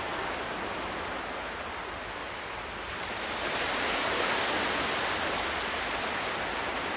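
Sea surf washing on a shore, a steady rush of water that swells louder about three seconds in and stays up.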